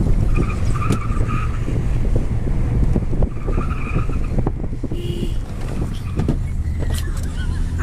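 Car driving on a rough road: a steady low rumble with frequent knocks and rattles, and two brief high squeals, one about half a second in and another around three and a half seconds.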